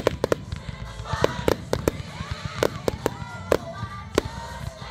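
A fireworks display with aerial shells bursting in a rapid string of sharp bangs, about two or three a second.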